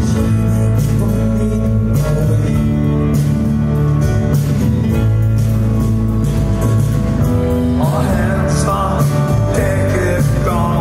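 A rock band playing live, heard from the crowd: electric guitar, drums and bass with a male singer's voice, loud and steady. About eight seconds in, a higher melodic line with bending notes comes in over the top.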